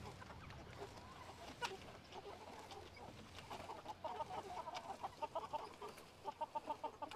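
A flock of meat chickens clucking softly. Quick runs of short calls come in from about halfway through.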